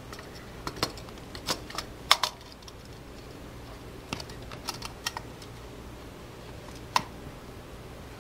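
Handling clicks and knocks as a mounting plate is pressed onto a GeoVision fixed IP dome camera body and the assembly is turned over. There are clusters of short, sharp clicks early on and again around four to five seconds in, and one sharp click about seven seconds in.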